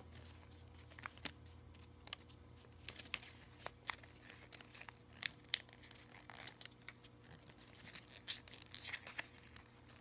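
A sheet of paper being folded and pressed flat by hand: faint, irregular crinkles and crackles as the creases are made.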